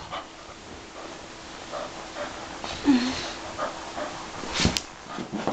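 Two dogs, a puggle and a dachshund–German shepherd mix, playing with balls on carpet: scuffling and panting, a brief low whine about three seconds in, and a sharp thump near the end.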